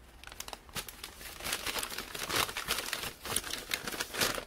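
Paper shopping bags rustling and crinkling as food packages are handled inside them, in irregular crackles that start about half a second in and grow louder.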